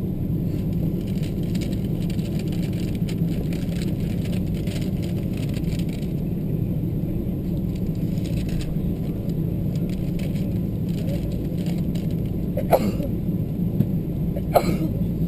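Cabin noise of a Boeing 777-200ER taxiing: a steady low rumble of the engines at taxi power and the rolling wheels. Near the end come two sharp clicks about two seconds apart.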